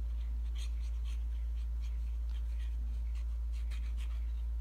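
Soft scratchy rustles of small paper cards and a plastic glue bottle being handled while glue is applied, over a steady low electrical hum that is the loudest thing heard.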